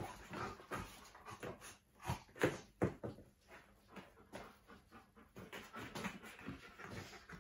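Soft scuffs and a few short thumps of a large dog moving and jumping about on artificial turf, with faint dog sounds among them; the thumps are loudest about two to three seconds in.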